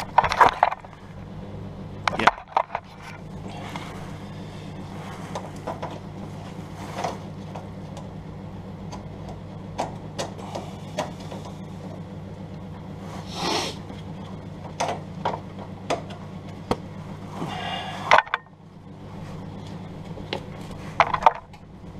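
Scattered clicks, knocks and short scrapes of tools and gear being handled, over a steady low electrical hum that drops out briefly near the end.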